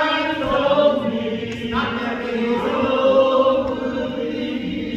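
Singing voices in a church, chant-like, with long held notes and slow slides in pitch.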